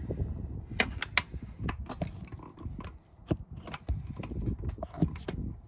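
Irregular metallic clicks and knocks of a spanner working the oil pipe nuts on an old stationary engine, with low handling noise between them.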